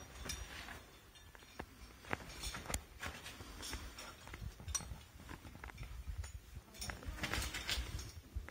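Irregular taps, scuffs and knocks of a person scrambling down through sandstone rock, shoes and gear striking and scraping the rock, with a denser run of scraping about seven seconds in.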